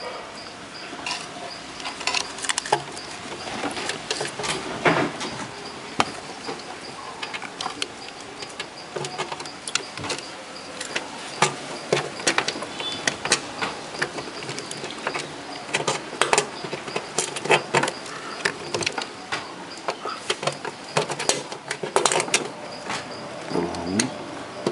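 Irregular clicks, knocks and rubbing as a hand handles the capacitors, wiring and transformer inside an open amplifier chassis, with a faint steady high whine underneath.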